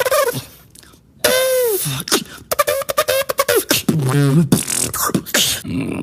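A beatboxer making vocal sound effects with the mouth: a loud tone that falls in pitch about a second in, then a fast run of clicks mixed with short held and falling tones.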